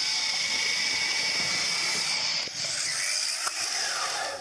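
Electric belt sander running flat out: a steady hiss of the sanding belt with a high motor whine.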